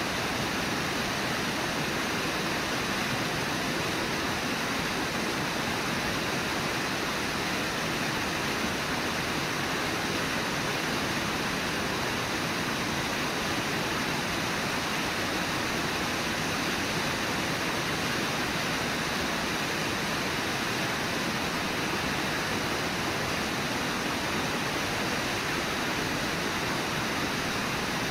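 Brooks River's shallow water rushing steadily over the riffles, an even unbroken rush.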